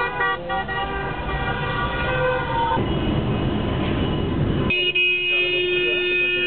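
Car horns honking in celebration in jammed traffic: several horns overlap for the first few seconds, then come a couple of seconds of rushing traffic noise, and then one long steady horn blast from about two-thirds of the way in.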